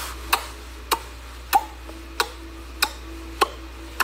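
Sharp clicks repeating at an even pace, about one every 0.6 seconds.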